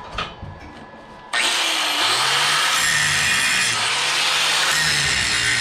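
Handheld angle grinder switched on about a second in and grinding stainless steel plate, a loud steady whir whose pitch dips and recovers as the disc is pressed into the metal.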